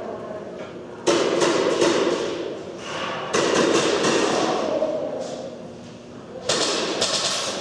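Airsoft guns firing in three rapid bursts of clicking shots, each a second or two long, starting about one, three and six and a half seconds in, with hall echo.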